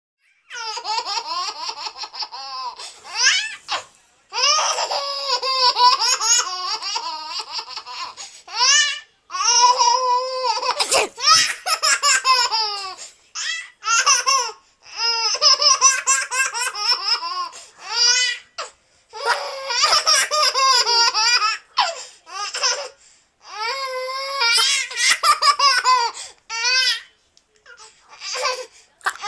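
Baby laughing hard in repeated high-pitched fits, each a few seconds long, with short breaks for breath between them.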